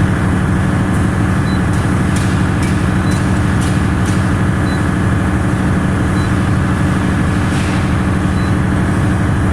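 Large 2000 kW diesel generator set running steadily with a constant, loud engine drone.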